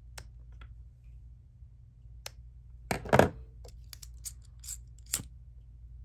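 Small scissors snipping the ends of macrame cord, a few short sharp snips spread out, with one louder double clack about three seconds in.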